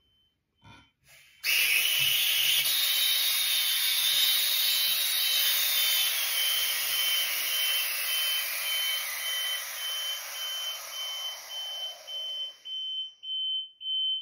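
Air hissing into an evacuated glass bell jar as its valve is opened, starting suddenly about a second and a half in and slowly dying away. The electronic beeper inside, a high pulsing tone, becomes plain as the air returns and beeps on its own a few times a second near the end.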